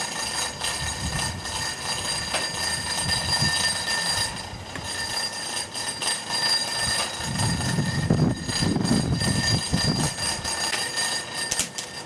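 Fuel tank truck during a delivery with its hoses coupled: a steady mechanical hum with several high whining tones held constant over a low rumble, which grows louder for a couple of seconds past the middle.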